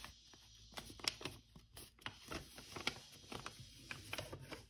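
Sheet of 80 gsm origami paper rustling and crackling as it is handled and folded into a new crease, a scatter of faint, short, sharp crinkles.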